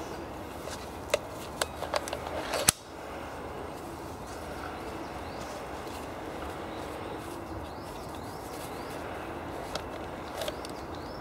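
Clicks and small knocks from the metal fittings of an MPP 5x4 large-format field camera being handled and opened out on its tripod, about half a dozen in the first three seconds, the last and loudest a sharp click. After that only a steady outdoor background hiss.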